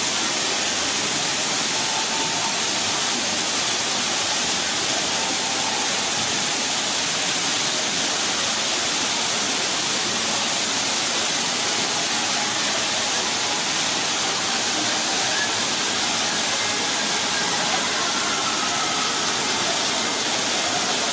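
Steady rush of a waterfall pouring into a pool.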